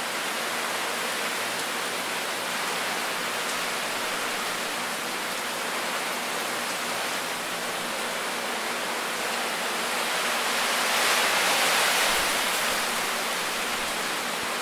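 Storm wind and heavy rain rushing steadily, swelling louder in a gust about eleven seconds in and easing off again.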